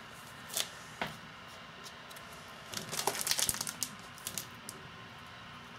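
Handling of cross-stitch pattern charts in clear plastic sleeves: scattered short crinkling crackles, busiest about three seconds in.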